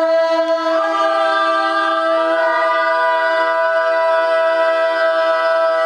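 A woman singing one long, steady note unaccompanied.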